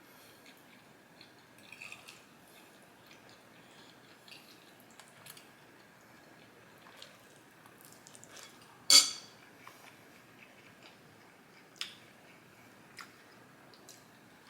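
Quiet eating sounds: small wet mouth clicks and light cutlery taps, with one sharp clink, like a fork against a plate, about nine seconds in.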